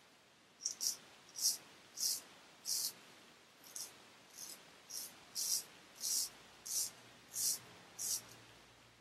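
Rosette Japanese straight razor shaving through stubble: a string of about a dozen short, crisp scraping strokes, one or two a second.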